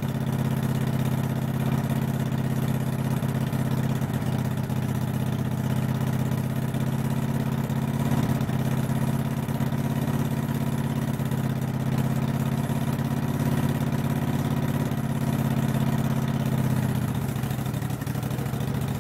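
Kohler engine of a riding lawn mower running steadily after a rocker arm repair, its note shifting about seventeen seconds in.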